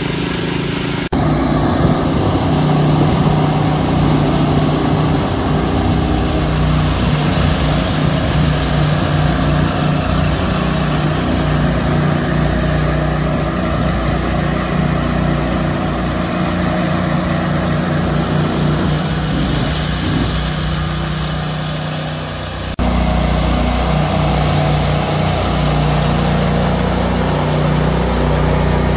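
Gasoline engines of power trowels running steadily while they float fresh concrete: first a walk-behind trowel, then ride-on trowels. The engine sound changes abruptly about a second in and again near 23 seconds.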